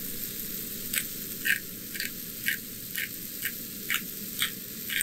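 Hand-twisted pepper grinder cracking black pepper, a short crunching click about twice a second, starting about a second in.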